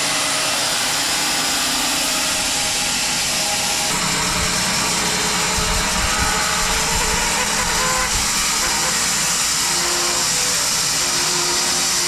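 Home-built bandsaw mill running steadily, its blade cutting lengthwise through a maple log.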